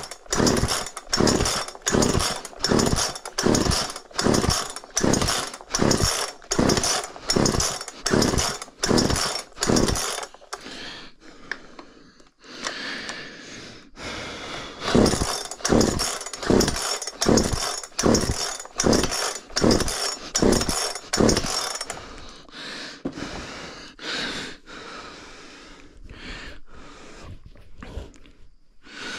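Craftsman 36cc two-stroke chainsaw engine running and revving up and dropping back about twice a second. It dies down to a lower running sound for a few seconds near the middle, surges again, then grows weaker and fades toward the end.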